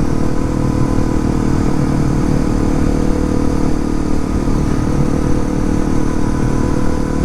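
Honda CRF250L's single-cylinder four-stroke engine running at a steady speed while the bike cruises along the road, its pitch holding even.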